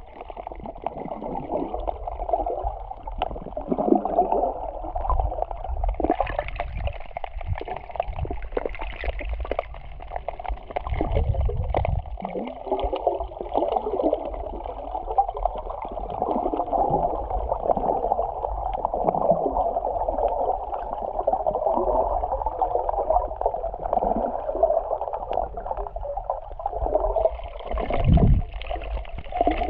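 Sea water sloshing and gurgling around a camera filming underwater, over a steady low rumble, with a few low thuds, the loudest near the end.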